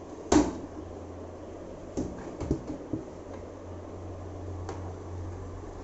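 A sharp clack a fraction of a second in, then a few lighter knocks and a click: a portable folding table's frame and locking catches being handled and pushed up into place. A steady low hum runs underneath.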